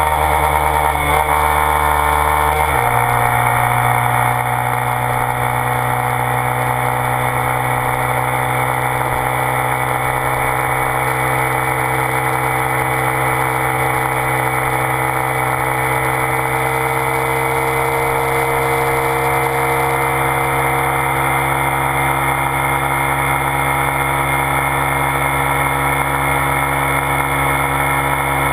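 Honda Grom's 125 cc single-cylinder engine running through a Two Brothers S1R aftermarket exhaust, heard riding at steady speed. The engine note changes abruptly about three seconds in, then holds steady.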